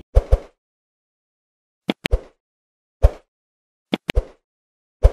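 Edited outro sound effects: short sharp knocks, mostly in pairs, coming about once a second with dead silence between them.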